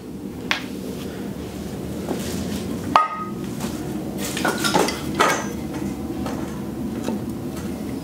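Cast metal intake manifold being handled and set onto a bare cylinder head on a workbench: light metal clinks, a sharp ringing knock about three seconds in, then a short clatter of metal on metal. A steady low hum runs underneath.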